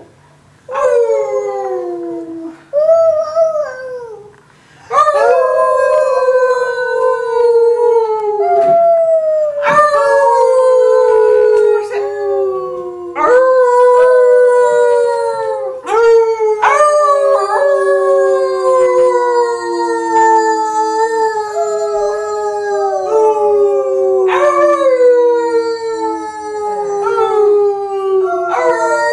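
A dog howling in long, drawn-out howls, each rising briefly at the start and then slowly falling in pitch. After a short pause near the start, at least one other voice howls along with it, so two howls overlap most of the time.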